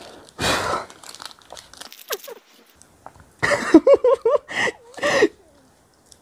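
Foil and paper wrapper of a Dairy Milk chocolate bar crinkling and tearing as it is unwrapped by hand. A breathy burst comes about half a second in, and a voice sounds in several short laughing bursts in the second half.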